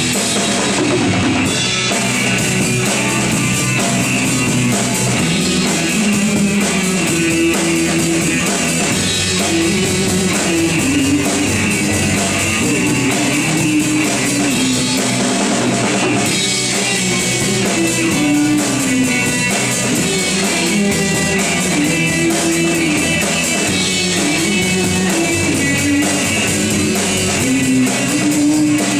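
Rock band playing an instrumental passage with no vocals: a drum kit keeps the beat under a guitar melody.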